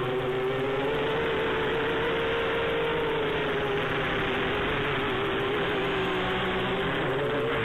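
Quadcopter's electric motors and propellers whining in flight, a steady pitch that wavers slightly with throttle and rises near the end.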